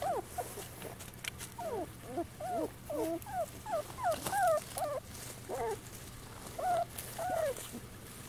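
Young beagle puppies whimpering and squeaking in short, high cries that bend up and down, several overlapping. The cries come thick and fast through the middle and thin out near the end.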